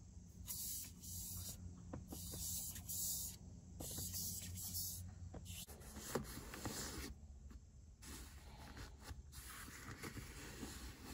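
Foam-tipped swab rubbing back and forth on the plastic slats of a car air vent and the shifter trim: a series of soft scratchy swishes, one every second or so, fainter in the second half, over a low steady hum.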